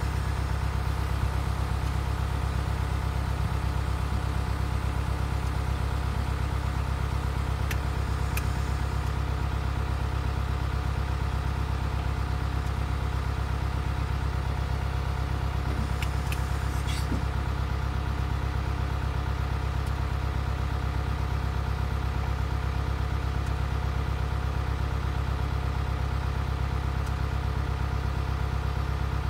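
Hino Dutro bucket truck's engine running steadily to power the hydraulics while the aerial boom telescopes out, with a few light clicks about 8 and 16 seconds in.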